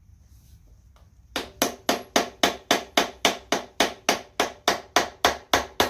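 A steady run of about eighteen hammer blows, roughly four a second, starting about a second and a half in: knocking at a 454 big-block's intake manifold to break it loose.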